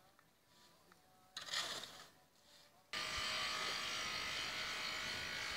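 A small motor-driven machine runs with a steady whirring buzz that starts suddenly about three seconds in and holds at one level. Before it comes a brief burst of noise.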